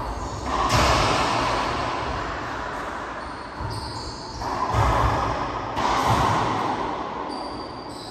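Racquetball being struck and hitting the court walls: sharp smacks that ring on in the enclosed court's echo, one about half a second in and a quick run of several more around five to six seconds in.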